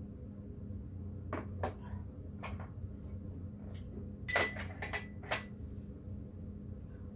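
Tableware clinking at a meal: a ceramic mug set down on the table and a metal spoon tapping and scraping in a soup pot. There are a few light knocks first, then a short cluster of louder clinks with a brief ring about four to five and a half seconds in.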